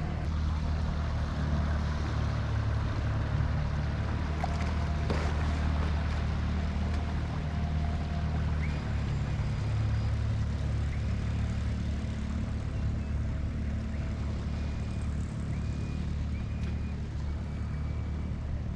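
Motorboat engine running steadily nearby, a continuous low drone that eases slightly in the second half.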